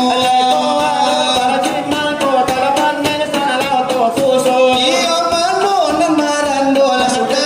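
Selawat dulang: voices singing a devotional song over a busy rhythm of hand strikes on a brass tray (dulang).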